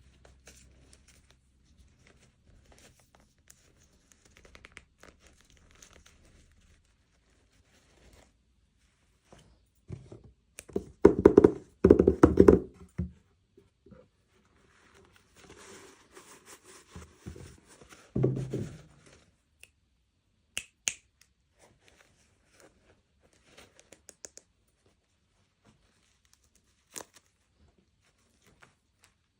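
Toy packaging being handled and opened: rustling and tearing with clicks and knocks of small plastic pieces, loudest in a burst of knocks and rustling about eleven to thirteen seconds in.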